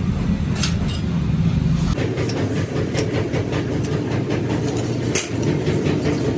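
Electric-motor-driven sheet-metal roller machine running with a steady hum, with scattered metallic clinks and taps as steel trowel blanks are handled and fed through the rollers. The hum changes pitch about two seconds in.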